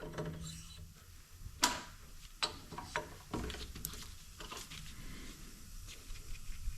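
About half a dozen scattered sharp clicks and knocks of tools and parts being handled while a cylinder head is clamped and set up on a machine. The loudest knock comes about a second and a half in.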